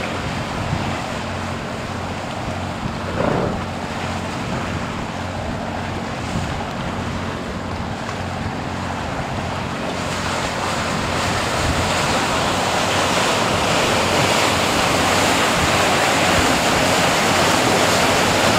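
Wind buffeting the microphone over rushing, splashing sea water churned up by a moving ship and a pilot boat running alongside, with a low steady hum underneath. The rushing grows louder from about halfway through.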